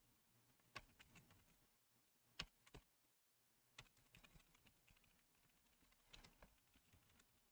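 Faint, scattered keystrokes on a computer keyboard as a command is typed: a handful of separate, irregular clicks, the clearest about a second in and again near two and a half seconds.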